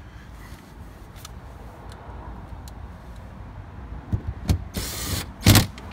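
Ryobi cordless drill-driver running in one short burst of about half a second to drive a door-panel screw, a few light clicks before it. A loud, heavy knock follows just after, near the end.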